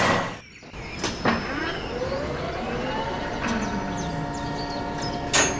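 Dubbed motor whine of a toy crane's winch: it rises in pitch over about two seconds, then holds steady. A sharp click comes about a second in and a short burst near the end.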